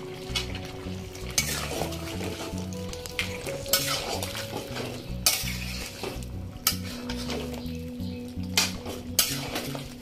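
A spatula stirring chunky vegetables in curry gravy in a metal kadai, with repeated scrapes and knocks against the pan.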